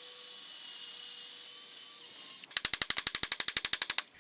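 Power drill-driver backing out fixings while the bench is dismantled: the motor whirs steadily, then about two and a half seconds in it breaks into a fast run of sharp clicks, about fourteen a second, for a second and a half.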